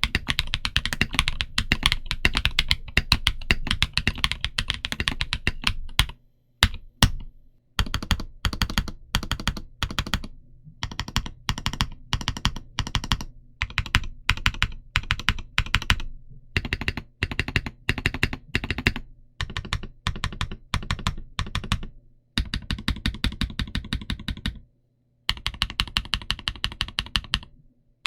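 Typing on an Omnitype Bauer Lite mechanical keyboard with MilkBone frankenswitches (Milky Brown housings, Halo Clear tactile stems, 62.5 g springs) under dye-sub PBT Cherry-profile keycaps. Quick runs of keystrokes several seconds long, broken by short pauses.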